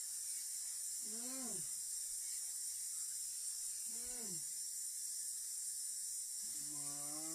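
Steady high-pitched hiss at an even level. Two short rising-and-falling voice-like sounds come about one and four seconds in, and a voice begins near the end.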